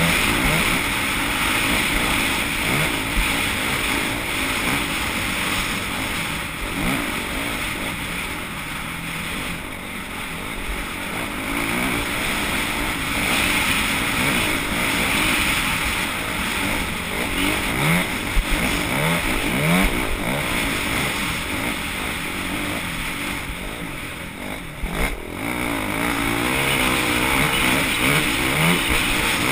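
Off-road racing vehicle engines running and revving, with short rising sweeps in pitch recurring throughout over a continuous noisy background.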